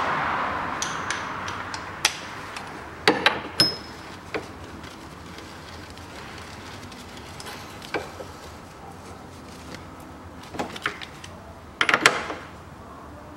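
Scattered sharp metallic clicks and knocks of a socket wrench on a long extension being fitted and turned on the subframe's rear mount bolt, tightening it on a repaired stud, with a cluster of clicks near the end. A broad rushing noise fades away over the first couple of seconds.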